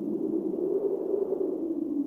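Calm wind sound effect: a steady, low, hollow whoosh of wind that swells slightly about a second in and settles back.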